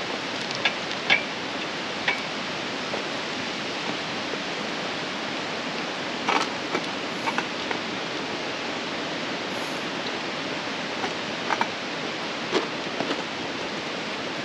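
Steady rushing of distant falling water from Mossbrae Falls, with a few faint scattered clicks.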